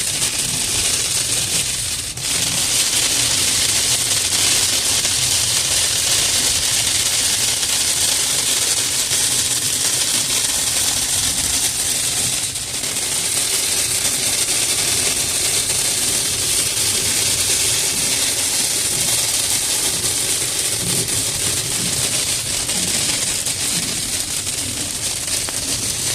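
Heavy rain mixed with hail pelting a moving car's roof and windshield: a loud, dense hiss full of crackling hits, easing briefly about two seconds in and again about twelve seconds in.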